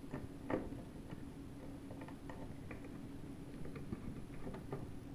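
Faint, irregular small clicks and ticks of a screw being driven into an aluminum external hard drive enclosure, with a slightly louder click about half a second in.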